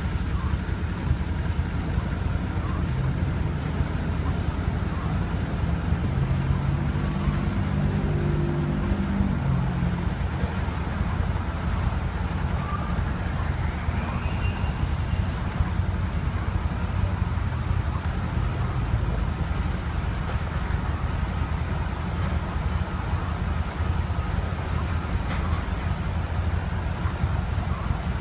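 Street traffic at an intersection over a steady low engine idle, with a vehicle passing about six to ten seconds in.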